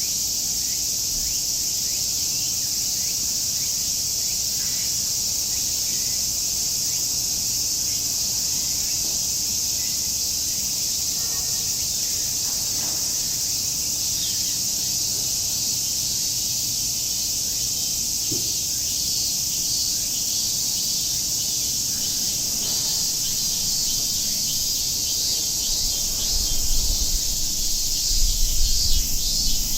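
A chorus of cicadas buzzing steadily and densely, with a few faint bird chirps scattered through it. Near the end a low thumping rumble comes in underneath.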